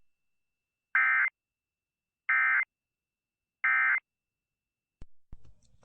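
Emergency Alert System end-of-message data bursts: three short, identical buzzy bursts of two-tone digital data, about a second and a half apart, marking the end of the alert message.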